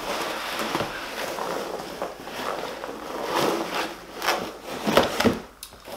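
Rubbing and scraping of a handled product box or packaging, with several sharp knocks and clicks spread through.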